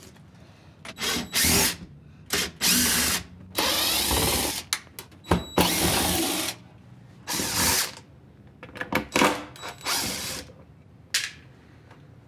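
Cordless drill-driver running in a series of short bursts, a second or less each, backing out the screws of an old swing-out bin's fittings, with sharp knocks between the bursts.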